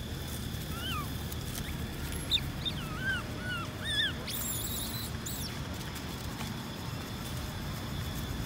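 A baby macaque giving a string of short, high, rise-and-fall squeaks, about once near the start and then several in quick succession about two to four seconds in, ending in a shriller call about four to five seconds in. Steady low background rumble throughout.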